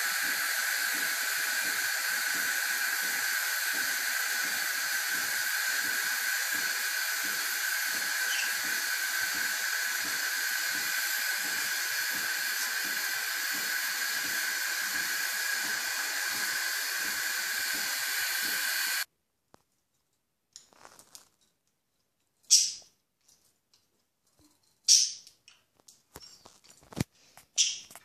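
A steady, even hiss that stops abruptly about two-thirds of the way in. After it come a few short, sharp chirps from the pet cage birds, louder than the hiss.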